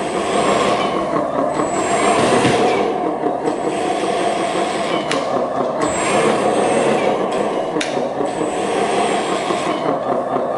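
Radio-controlled XD loader running on test after a speaker replacement, its sound system putting out a steady engine rumble through the new speakers, with a few sharp clicks about halfway through.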